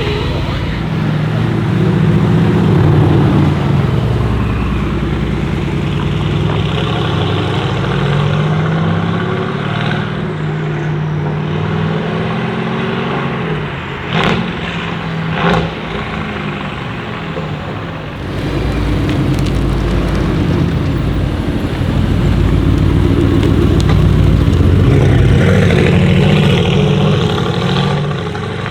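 Mercedes-AMG GT R Pro's twin-turbo 4.0-litre V8 through a straight-pipe exhaust, driving with the engine note rising and falling as it is revved and eased off. About halfway through come two sharp cracks, roughly a second apart.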